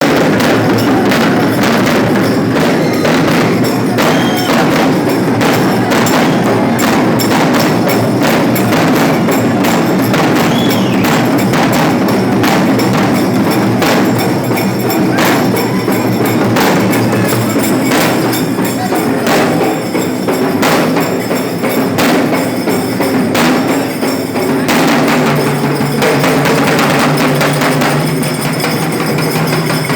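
Loud percussion music: drums struck in a fast, regular rhythm with sharp strikes throughout, joined near the end by a steady low held tone.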